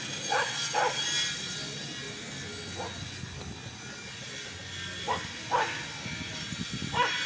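Dogs barking in short single barks: two in quick succession within the first second, a faint one near three seconds, two more a little past five seconds and one near the end, over steady background noise.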